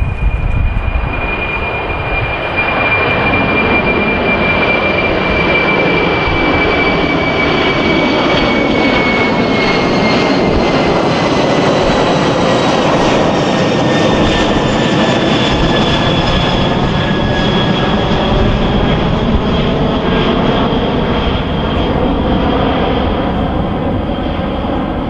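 Four-engine Boeing 747 freighter climbing out after takeoff and passing overhead: a loud, steady jet roar with a high whine that slowly falls in pitch as the aircraft goes over and away.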